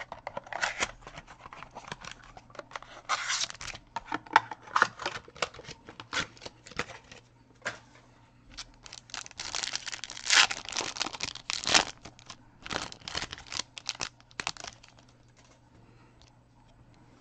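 Plastic wrapping on a sealed box of baseball cards being torn open, with crinkling and rustling in many irregular bursts that die away near the end.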